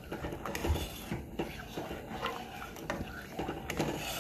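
A spoon stirring a pot of boiling split peas, scraping and knocking against the metal pot in quick, irregular clicks.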